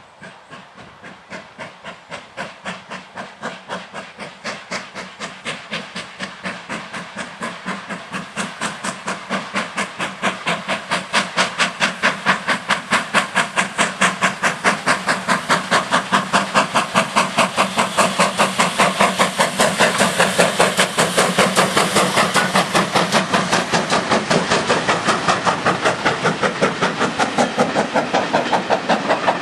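GWR Castle class four-cylinder steam locomotive working hard as it pulls away with a passenger train, its exhaust beats coming fast and even and growing steadily louder as it approaches and passes. The beats are loudest about two-thirds of the way through, then ease off a little as the coaches roll by.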